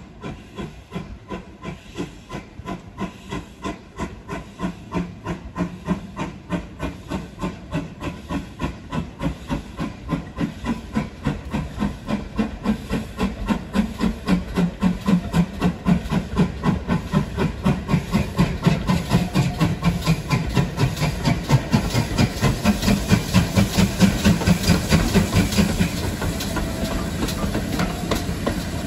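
Steam locomotive working under load, its exhaust beats quickening and growing louder as it comes closer. Near the end the beats give way to a steady rolling noise of the train.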